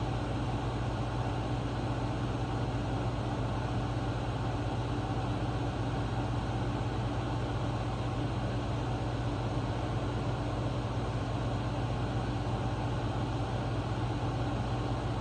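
Room air conditioner and fan running with a steady, even hum.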